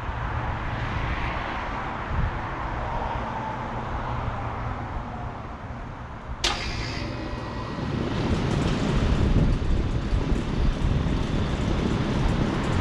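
A 1986 Rheem Custom High Efficiency central air conditioner's outdoor unit starting up: a sharp click about six seconds in as it switches on, then the compressor and condenser fan come up to a louder, steady low running noise.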